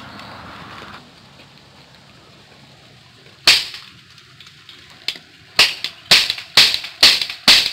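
Toy cap gun firing its caps: one sharp crack about three and a half seconds in, then a run of sharp cracks about two a second near the end.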